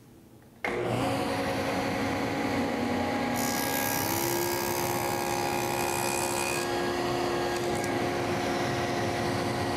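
Table saw with a stacked dado blade running and cutting a shallow dado along the edge of a wooden frame rail. It starts suddenly about a second in, with a steady whine, and the cutting noise grows brighter for a few seconds in the middle.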